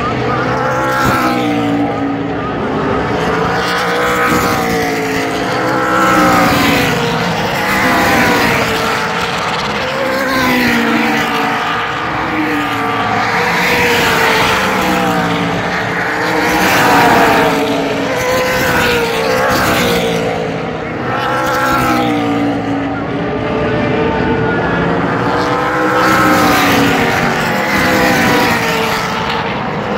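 Several Super Late Model race cars' V8 engines running together around a short oval, their pitches rising and falling every second or two as they go around the track.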